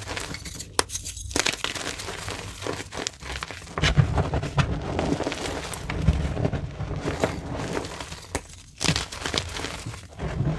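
Purple reformed gym chalk being crushed and crumbled in gloved hands in a tray of chalk powder. There are irregular dry crunches and crackles over a soft rustle of powder, and the crunching grows heavier and deeper in the middle.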